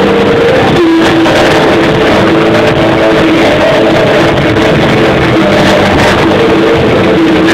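Rock band playing live, with electric guitar at the front of a loud, steady wall of sound. The recording is loud and overloaded, with poor sound quality.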